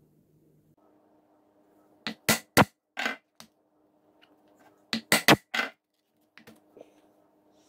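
Hammer or mallet striking a steel hole punch to drive it through leather into a wooden board: two quick runs of four or five sharp blows, then a few light taps.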